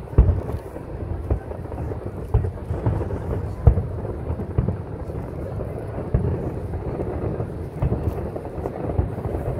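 Aerial firework shells bursting in quick succession, their booms running together into a continuous rolling rumble. Sharper bangs stand out near the start and about three and a half seconds in.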